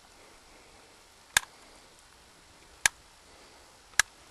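Three sharp, short clicks, about a second and a half apart, over quiet background.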